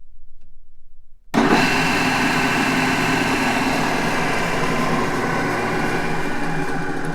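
Large drill press running, coming in abruptly and loudly about a second in, then holding a steady, dense mechanical whir with several held tones.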